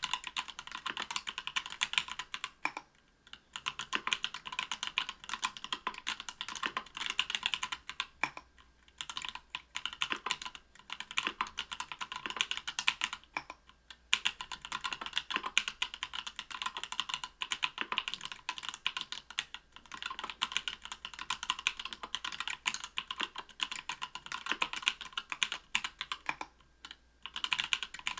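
Continuous typing on a mechanical keyboard with stock, unlubed SP-Star Polaris Gray 67g linear switches in an aluminium-plate Octagon V3, with Cherry-profile PBT keycaps. Rapid runs of keystrokes are broken by a few brief pauses.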